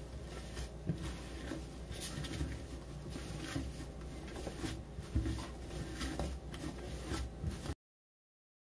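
Hands kneading warm coxinha dough on a greased countertop: soft, irregular rubbing and pressing sounds over a steady low hum. It cuts off abruptly to dead silence about a second before the end.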